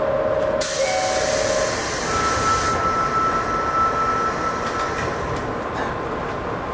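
JR Kyushu 103 series electric train standing at an underground platform with a steady hum. A loud burst of compressed-air hiss from the train starts about half a second in and cuts off sharply about two seconds later. A held tone sounds at the start, and a higher steady tone sounds for about three seconds after the hiss begins.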